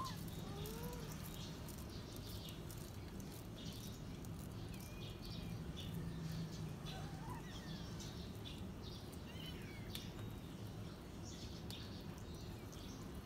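Litter of kittens eating together: faint, scattered small clicks of chewing and licking, with a few brief, faint high calls that rise and fall, over a steady low hum.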